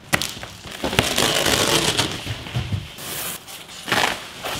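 Clear plastic wrapping crinkling and rustling as it is pulled off a boxed rooftop tent, with a few sharp cracks.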